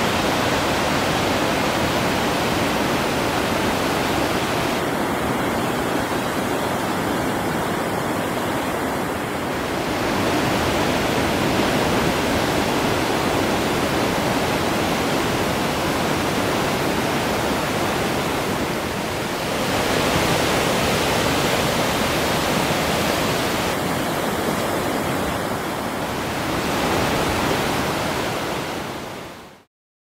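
Steady rushing of sea surf breaking on a rocky shore together with water falling down a sea cliff, shifting slightly in level a few times.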